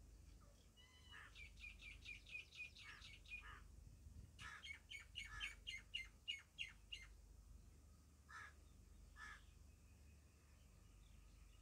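Faint bird calls: two quick runs of repeated chirps, several a second, then two single calls a second apart.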